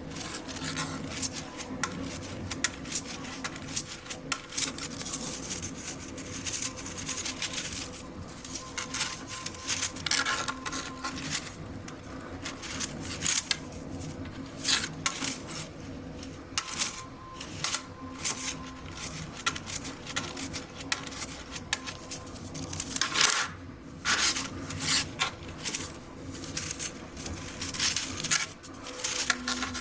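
A 3D-printed plastic fidget toy worked by hand: irregular clicks, rattles and short scrapes of plastic parts, over a steady background hum.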